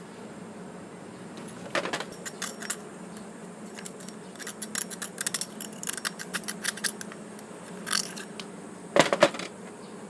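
Small metal brake master cylinder parts clinking and tapping as they are handled, in scattered clicks with a busy run in the middle and the loudest clatter near the end.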